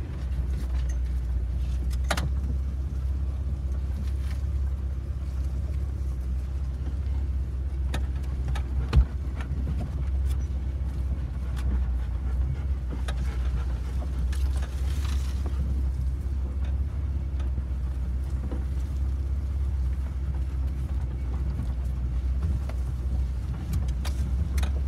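Heard from inside the cab of a 2005 Jeep Wrangler Rubicon, its 4.0-litre straight-six driving slowly over a rough dirt trail: a steady low engine and drivetrain rumble with scattered light rattles and clicks. One sharp knock stands out about nine seconds in.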